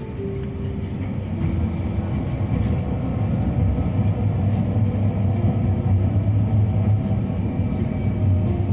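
Narrow-gauge mountain train running on the rails: a steady low rumble that grows louder over the first few seconds. Soft acoustic music fades out about a second in.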